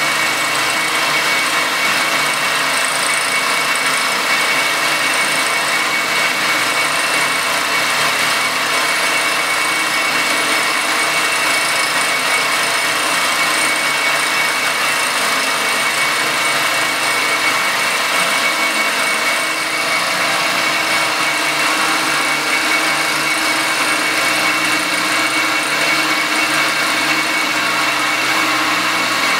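Circa-1948 Gorton 8-1/2D vertical milling machine running, its end mill taking a steady cut across an aluminum casting. The cutting noise is continuous, with a steady high whine over it.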